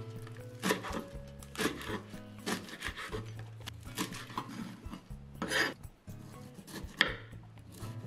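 Knife chopping vegetables on a cutting board, a stroke roughly every second, with one longer scraping stroke about five and a half seconds in, over soft background music.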